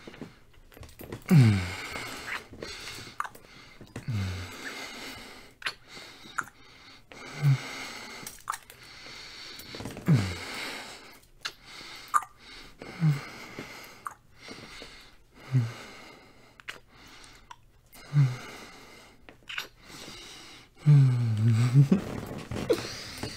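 Close-miked kissing: a man's wet lip smacks and breathing, with a short low hum falling in pitch every few seconds and a longer hum near the end.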